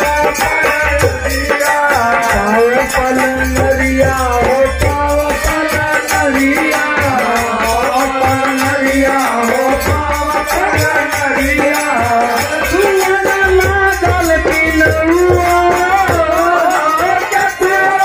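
Bhojpuri Holi folk song performed live: a man singing to harmonium accompaniment, with small brass hand cymbals (manjira) clashing in a steady, even rhythm.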